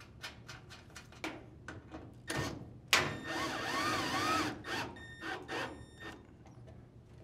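Light clicks, then a drill driver runs for about a second and a half, its motor whine rising and falling, as it drives a screw into the dryer's sheet-metal panel.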